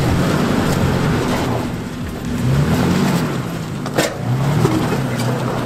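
Toyota SUV's 4.0-litre V6 revving in pulses while crawling up a rock obstacle, its pitch rising and falling about three times. There is a sharp knock about four seconds in.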